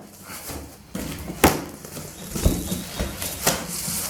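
Cardboard packaging being opened and handled: irregular knocks and scrapes with rustling, the sharpest knock about a second and a half in.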